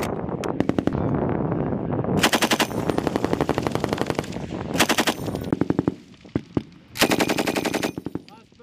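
M240B machine guns firing bursts of rapid, evenly spaced shots, with several guns overlapping. The loudest, closest bursts come about two, five and seven seconds in, and there is a short lull near six seconds.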